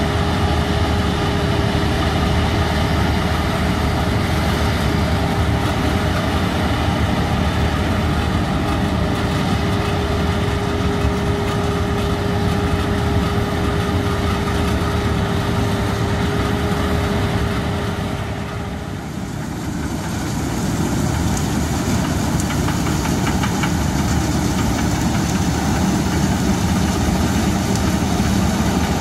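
Claas Avero 240 combine harvester's diesel engine and threshing machinery running steadily, with a held whine through the first part. The sound dips briefly about two-thirds in, then carries on as the combine cuts oats.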